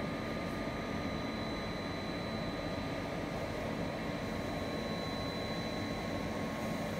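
Blown film extrusion line running: a steady machine drone with a few constant whines held over it, one of them high-pitched.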